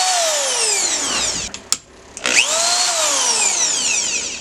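DeWalt drill, used as an improvised lathe with a metal rod in its chuck, run in two short bursts. The motor whine falls away as it coasts down. A sharp click comes about a second and a half in, then the whine rises quickly to speed again and coasts down a second time.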